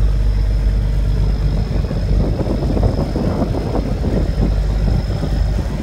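An engine running steadily: a continuous low rumble with a faint steady high whine above it.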